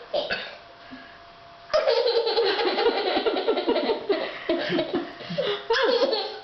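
People laughing heartily, starting suddenly about two seconds in and going on in pulsing bursts.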